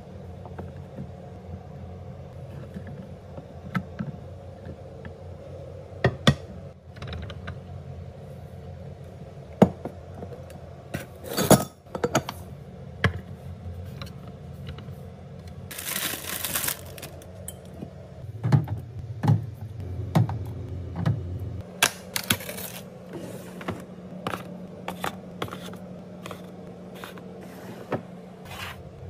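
A run of small clicks, taps and clinks as glass jars, lids and treats are handled and set down on a wooden tray and countertop. A louder rustling burst comes about midway.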